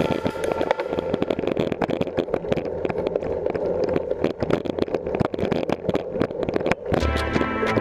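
Mountain bike ridden over a rough concrete-slab track, picked up by a GoPro on the rider or bike: a steady rumble of tyres and wind with dense, irregular rattling from the bike. Music with a steady beat cuts in near the end.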